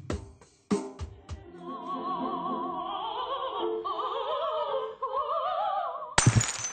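A few sharp knocks, then a high operatic voice singing with a wide, wavering vibrato for about four seconds, cut off by a sudden loud crash near the end.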